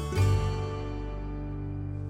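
Instrumental background music; a chord is struck just after the start and left to ring out, fading.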